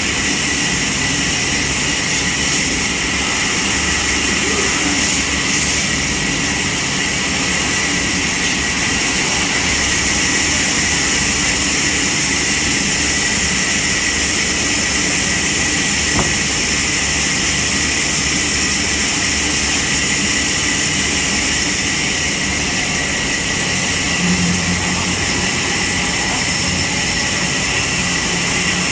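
Sawmill machinery running steadily: a loud, unbroken mechanical noise with a constant high whine.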